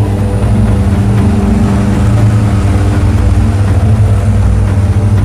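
Propeller aircraft engines running at a steady drone, heard from inside the cabin of a skydiving jump plane in flight.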